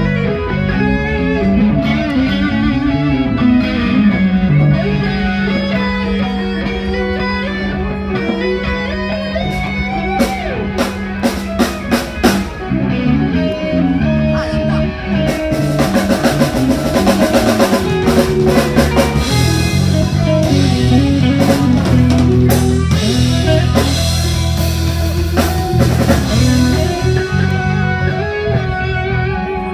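Live band playing instrumental music during a sound check: electric guitar over bass and a drum kit, with a quick run of drum hits about ten seconds in.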